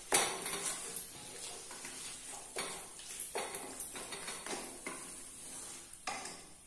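Wooden spatula stirring and scraping chicken in thick masala around a pot as it sautés, with irregular scrapes and knocks every half second or so over a light sizzle.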